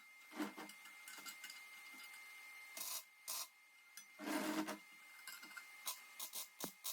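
Irregular scraping and rubbing from hand work on steel parts, with a few short knocks; the loudest scrape comes a little past the middle.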